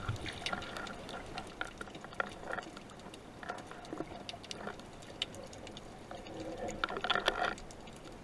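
Water bubbling and gurgling around an underwater camera near the surface, with many small scattered clicks; the gurgling comes in short patches, strongest just after the start and again around seven seconds.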